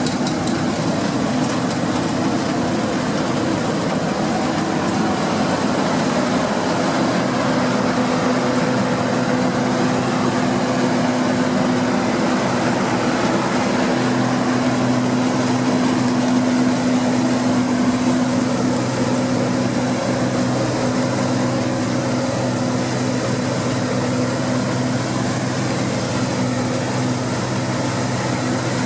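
Deutz-Fahr 6060 combine harvester running steadily while harvesting wheat, a continuous engine and machinery drone; a low hum in it grows stronger about halfway through.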